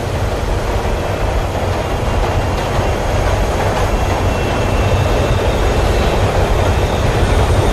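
Subway train running through a tunnel: a steady rumble of wheels on rails that grows slightly louder.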